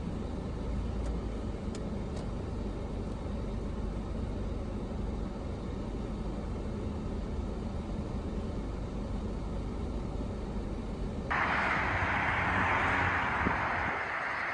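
Steady low rumble of a car's engine and road noise heard from inside the moving car. About eleven seconds in it cuts abruptly to a louder, even hiss.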